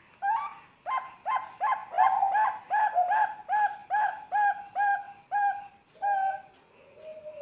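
Young Bangkok-strain zebra dove (perkutut) singing: a quick run of about fifteen short cooing notes, about three a second, ending about six seconds in. A softer low falling coo follows near the end.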